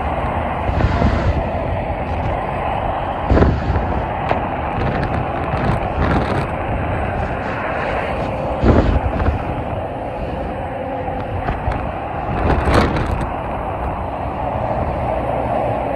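Steady noise of heavy freeway traffic, with tractor-trailers and cars passing below. Three loud thumps break through it, about three seconds in, near the middle and a little later.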